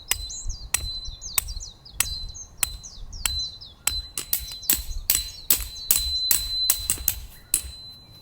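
A hammer driving a metal tent peg: sharp ringing blows, about two a second at first, quickening to three or four a second about halfway through.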